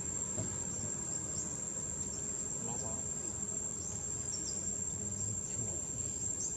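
Insects droning on one steady, high-pitched note, with short high falling chirps scattered over it and a low outdoor background rumble.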